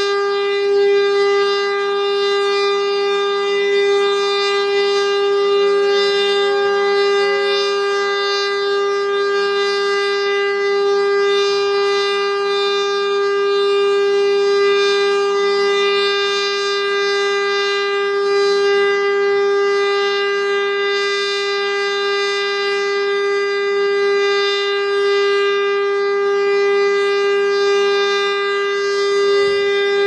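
Federal Signal STL-10 electromechanical warning siren sounding a steady tone at full speed during a test. The pitch holds level and does not rise or fall.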